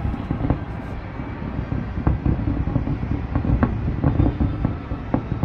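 Distant fireworks going off: an irregular, closely spaced run of low booms and sharp pops over a continuous low rumble.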